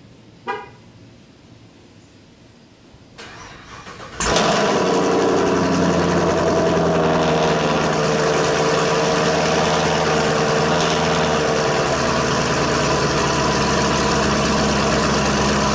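Chevrolet Camaro SS V8 starting: the starter cranks briefly about three seconds in, the engine catches about a second later and settles into a steady, loud idle through the exhaust. A short beep sounds about half a second in.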